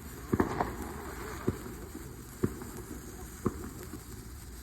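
Fireworks going off: about five sharp, single pops spread roughly a second apart over a steady background hiss.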